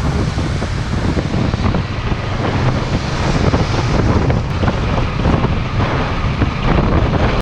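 Wind buffeting the microphone of a camera on a moving motorcycle, a steady rush of noise over the low rumble of the bike and road.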